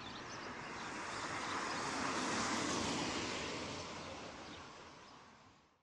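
A passing vehicle: an even rushing noise that swells to a peak about halfway through and then fades away.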